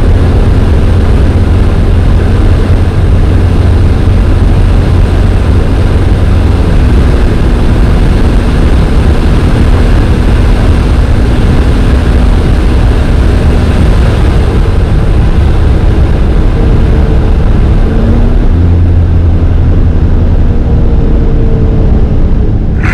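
Brabus Rocket 900's twin-turbo V12 running flat out at high speed, under a loud, steady rush of wind and road noise. The engine note holds level, shifting slightly about a third of the way in and again near the end.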